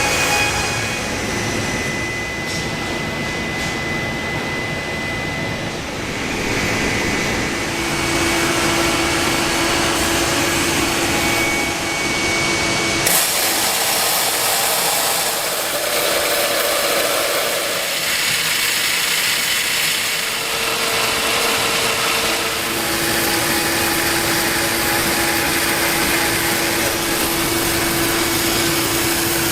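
Woodworking machinery and power tools running steadily, with a faint whine in places; the sound changes character several times.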